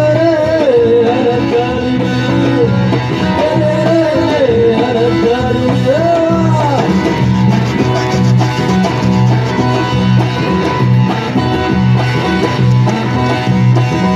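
Live amplified music: a sung melody over plucked guitar and a steady, repeating bass beat. The singing stops about seven seconds in while the band plays on.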